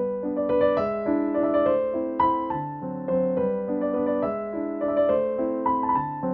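Background piano music: gentle, steady notes played one after another.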